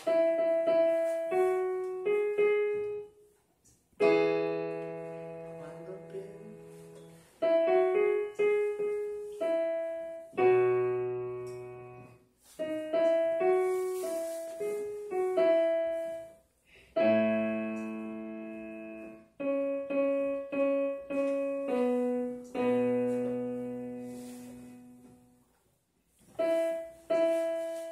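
Digital piano played slowly: phrases of single melody notes over held chords and low bass notes, separated by short pauses.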